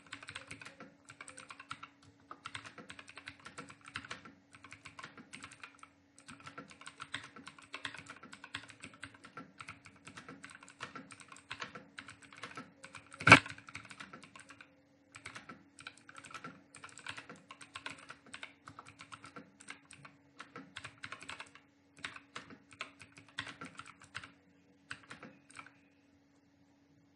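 Fast typing on a computer keyboard: a dense, rapid stream of key clicks with a few short pauses, over a steady low hum. One much louder knock comes about thirteen seconds in, and the typing stops shortly before the end.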